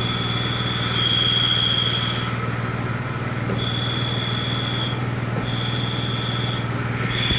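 1989 Toyota 4Runner engine running steadily, with a high-pitched chirping squeal that comes and goes in stretches of about a second. The chirp is one that goes away when the clutch pedal is pushed in.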